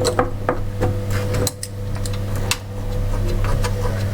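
A steady low mechanical hum with a few light clicks and taps scattered through it, from fittings and tools being handled.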